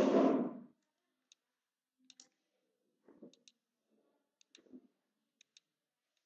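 Computer mouse button clicking as path anchor points are placed: faint, sharp ticks about once a second, several coming in quick pairs. A brief muffled noise right at the start is the loudest thing.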